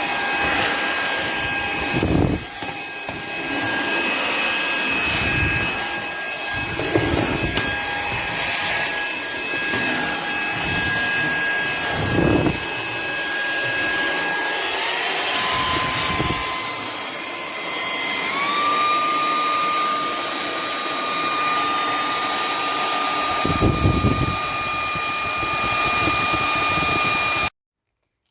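Cordless handheld vacuum cleaner's small high-speed motor running with a steady whine, stepping up in pitch twice partway through, with a few brief low rushes of air, then switched off abruptly near the end.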